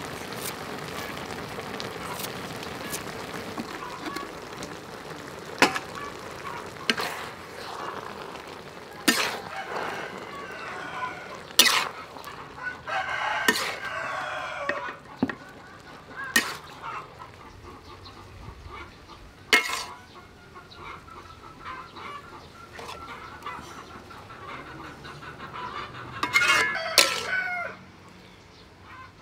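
Metal utensil knocking and scraping against a large metal wok as a soupy mushroom-and-egg stir-fry is stirred, with about a dozen sharp clanks over a steady simmer. Chickens cluck and a rooster crows in the background, most clearly in the middle and near the end.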